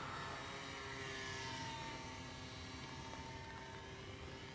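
Electric RC model of a Boeing P-26 Peashooter flying overhead: its motor and propeller give a thin, steady whine, whose higher tones slide in pitch about a second in as the plane passes. The sound slowly fades.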